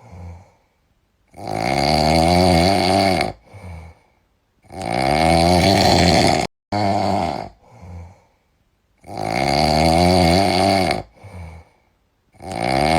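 A sleeping cat snoring: four loud snores, each about two seconds long and about three and a half seconds apart, with a short, softer breath between them.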